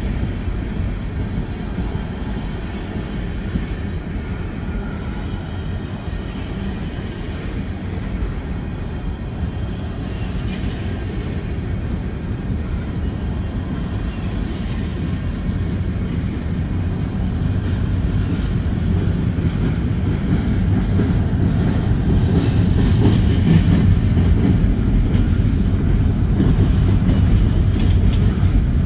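Norfolk Southern freight train rolling past close by, its tank cars and covered hopper cars rumbling steadily on the rails. The rumble gets louder over the second half.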